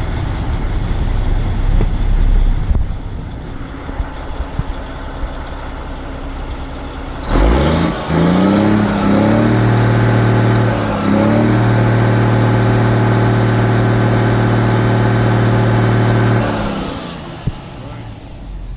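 Mercedes-Benz OM460LA turbocharged inline-six diesel engine idling, then revved hard about seven seconds in and held at high speed for about nine seconds with one short dip, before dropping back to idle near the end. A high turbo whine winds down as the revs fall.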